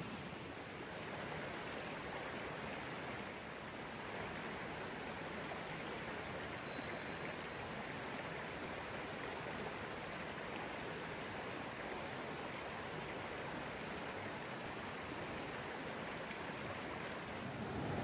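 Mountain stream water flowing steadily.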